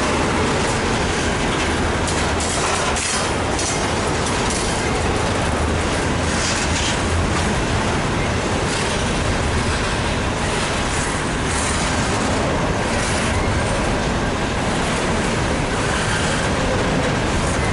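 Double-stack intermodal container train of well cars rolling past close by: a steady rumble of steel wheels on rail, with scattered clicks as the wheels cross rail joints.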